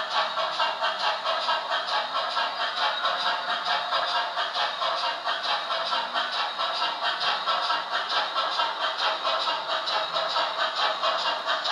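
Sound decoder in an Oxford Rail Dean Goods model steam locomotive (a GWR 0-6-0) playing steady rhythmic exhaust chuffs through its small onboard speaker as the locomotive runs.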